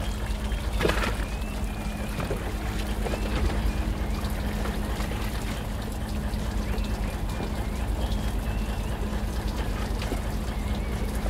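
Boat engine idling with a steady low hum, under water trickling and splashing.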